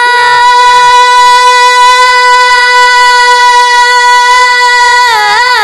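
A boy's singing voice holds one long, steady note for about five seconds in an Urdu naat, then breaks into a short run of quick turns near the end.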